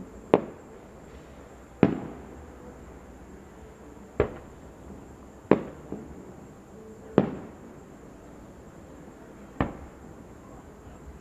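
Aerial firework shells bursting one at a time: six sharp bangs, irregularly spaced one to two and a half seconds apart, each trailing off briefly.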